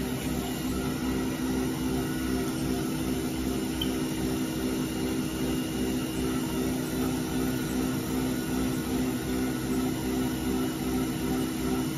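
Haas VF-0E milling machine's spindle and its vector-drive motor running at about 3,800 RPM: a steady hum with a rhythmic wah-wah pulsing underneath, the sound of the spindle speed hunting up and down. The owner suspected bad bearings but thinks not.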